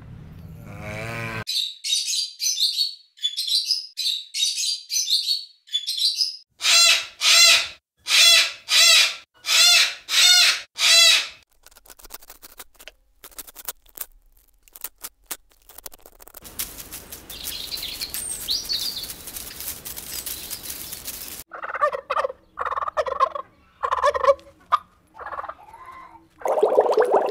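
Birds calling: quick high chirps for the first few seconds, then a run of about seven loud repeated calls, each under a second long. After that come scattered clicks, a hiss and a further set of shorter, lower calls.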